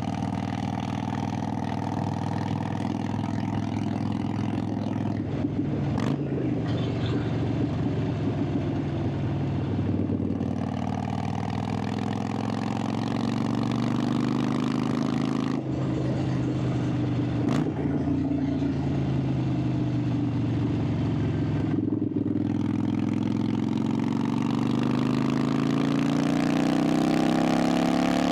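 Harley-Davidson Sportster 883's V-twin engine and exhaust under way. The pitch climbs under throttle, drops at gear changes about five and fifteen seconds in, and climbs again steadily toward the end.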